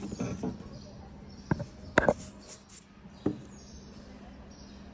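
Handling of a memory module and graphics card while their gold contacts are rubbed clean with an eraser. There are short scratchy rubbing strokes at the start, then a few sharp taps and knocks, the loudest about two seconds in, over a faint steady hum.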